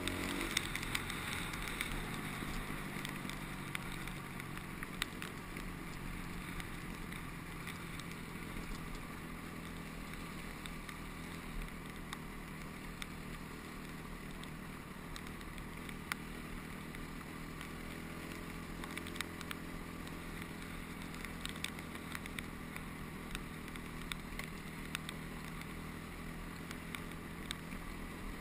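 Honda CRF250X dirt bike's four-stroke single-cylinder engine running steadily while ridden, a little louder in the first few seconds, with scattered small clicks.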